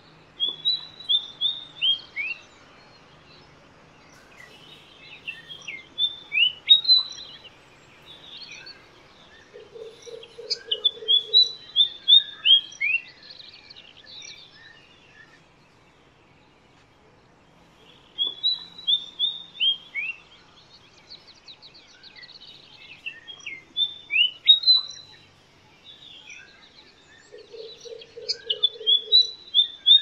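White-spotted fantail singing: repeated phrases of short, high whistled notes, many sliding down in pitch, sung every few seconds with short pauses between. Twice a brief low run of rapid pulses sounds beneath the song.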